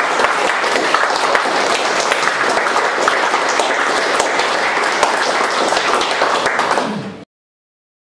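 Audience applauding, a dense, steady clapping that cuts off suddenly about seven seconds in.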